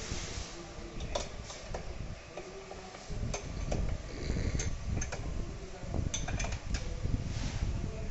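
Irregular metallic clicks and taps of a hand tool working the plate clamp on an offset printing press's plate cylinder while the plate is being set, over a low rumble.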